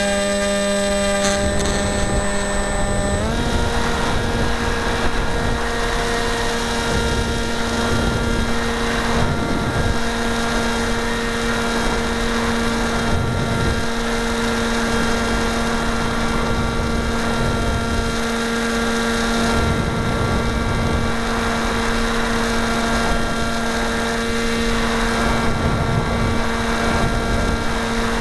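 Electric motor and pusher propeller of an EasyStar RC model plane running steadily, heard from a camera mounted on the plane; the whine steps up slightly in pitch about three seconds in. Wind rumbles on the microphone.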